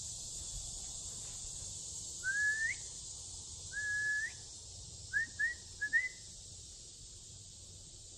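A person whistling loudly to announce her presence on the trail: two longer notes, each sliding up at the end, then four short rising chirps. A steady high insect buzz runs underneath.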